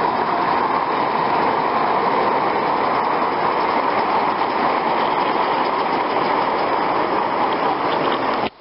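Gauge 3 model train running on garden track: its metal wheels make a steady rolling rush with faint clicks over the rails. The sound cuts off suddenly just before the end.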